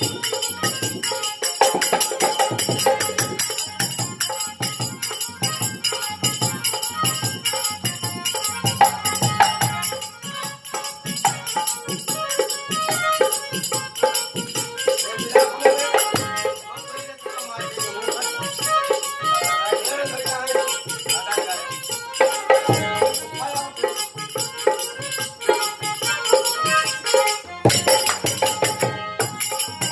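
Instrumental passage of a nirgun folk song: harmonium melody over dholak drumming, with the jingle of small hand cymbals keeping a steady rhythm.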